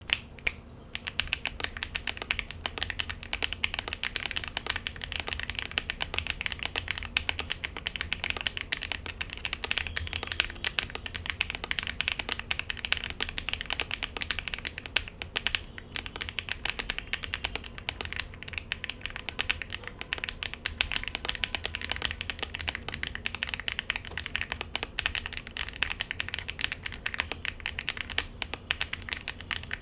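Fast, continuous typing on a KBDfans D65 mechanical keyboard with a brass plate and Akko x HMX Cilantro switches: dense key clacks with a few brief pauses.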